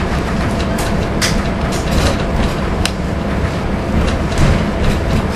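Class 108 diesel multiple unit under way, heard from the driving cab: a steady rumble of its diesel engines and wheels on the rails, with a few sharp clicks and rattles.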